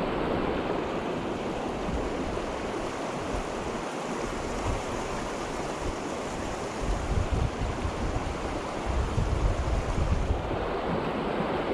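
Small mountain creek running high with early spring runoff: a steady rush of water. Wind rumbles on the microphone in the second half.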